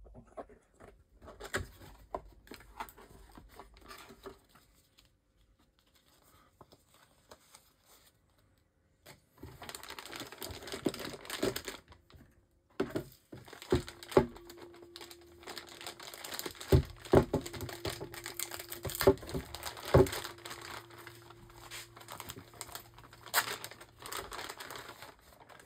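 Unboxing a solar charge controller: cardboard box flaps and packaging handled with light taps and knocks, then a plastic bag crinkling, with sharp knocks as the packed unit is set down and turned over. Quiet for a few seconds before the crinkling starts about nine seconds in.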